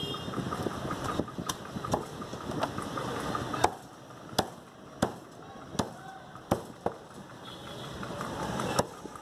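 Butcher's cleaver chopping a dressed chicken into pieces on a wooden chopping block: a series of sharp chops, most about two-thirds of a second apart, starting a little over a third of the way in, after a stretch of steady background noise.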